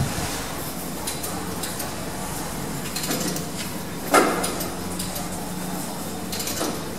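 Lift machinery heard from on top of the lift car: a steady low hum, with a sharp metallic clunk about four seconds in and a couple of lighter knocks near the end.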